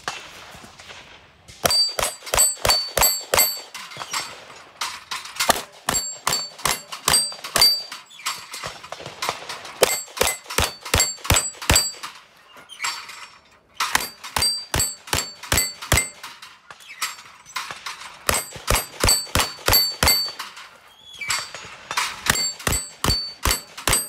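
Semi-automatic pistol fired in several fast strings of shots, about four to five a second, with short pauses between strings. Steel targets ring among the shots.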